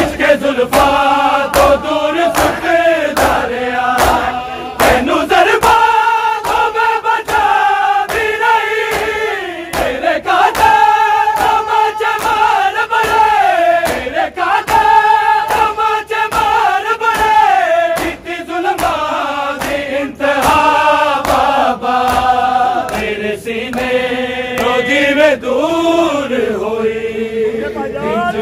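A large group of men chanting a Punjabi noha in unison, in long held notes that slide between pitches, over a steady beat of hands striking bare chests (matam).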